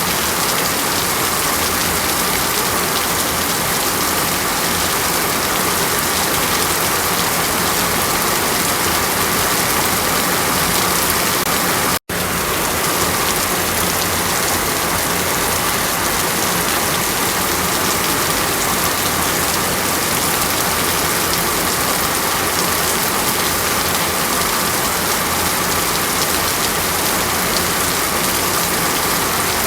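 Steady, even hiss of falling water, rain-like, that drops out to silence for an instant about twelve seconds in.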